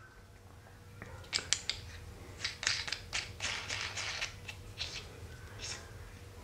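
Metal heating die being fitted onto the heating plate of an 800-watt pipe fusion welder: a run of small clicks and scrapes of metal on metal, starting about a second in and stopping near the end.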